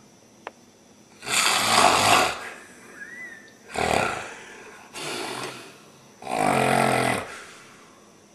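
A person snoring heavily, four rasping snore breaths spread over about six seconds. The first is the loudest, and the last has a low rattling buzz.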